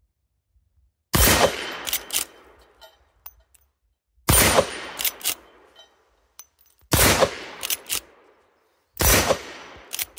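Four gunshots from a Citadel Levtac-92 .357 Magnum lever-action rifle, spaced about two to three seconds apart. Each shot has a decaying echo and is followed by sharp metallic clicks as the lever is worked to chamber the next round.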